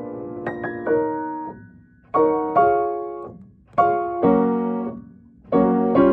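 Upright piano playing a slow choral accompaniment: chords struck in pairs, each pair left to ring and fade before the next comes about every second and a half.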